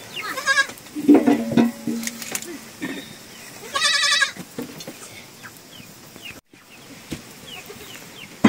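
Goats bleating: a lower call about a second in, then a loud, high, wavering bleat around four seconds in. Small birds chirp faintly throughout.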